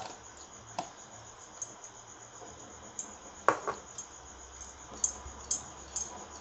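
A few scattered light clicks and taps from batter being spread by hand over colocasia leaves, about five, spread unevenly.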